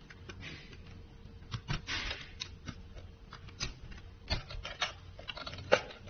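Irregular small plastic clicks and short rubbing sounds from terminal cable plugs being pushed into a window-cleaning robot and its plastic front cover being handled and fitted back on.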